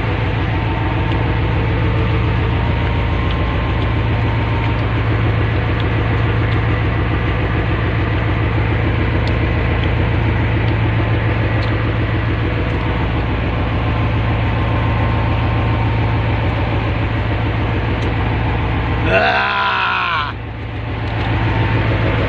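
Fishing boat's engine running steadily, a loud drone with a fast, even pulse. Near the end a short pitched, voice-like sound bends up and down over it.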